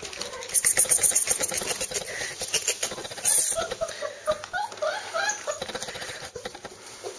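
One-month-old Bernese mountain dog puppies giving short squeaky whimpers, over a run of clicks and rustling near the start and a sharp rustle just after the middle.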